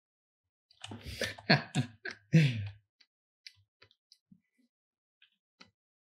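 A man's voice for about two seconds, a few unworded syllables falling in pitch, followed by scattered faint clicks of computer input at the desk.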